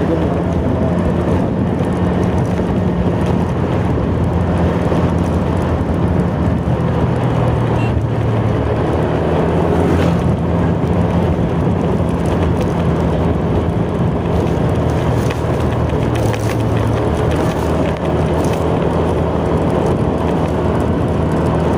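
Motorcycle engine running steadily at road speed, heard from the rider's seat with wind and road noise on the microphone; the engine pitch shifts a little now and then.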